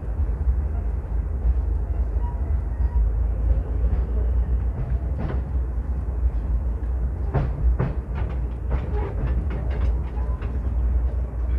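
Commuter train running slowly, heard from inside the carriage: a steady low rumble, with a run of short sharp clicks and knocks about seven to ten seconds in.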